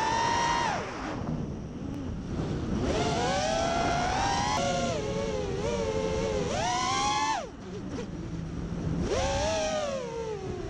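FPV quadcopter's brushless motors whining, the pitch climbing and sinking with the throttle. The whine drops away to a low hum twice as the throttle is cut, about a second in and again at about seven and a half seconds, then picks up again each time.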